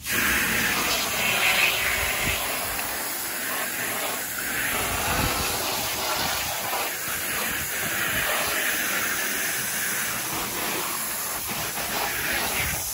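Garden hose spray jetting water onto the vinyl floor and wall of an inflatable hot tub, a steady hiss as the soap is rinsed off.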